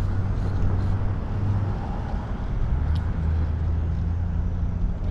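Low, steady engine hum that drops slightly in pitch about three seconds in.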